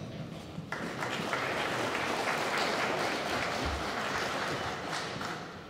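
Audience applauding. It starts about a second in, holds steady, and dies away near the end.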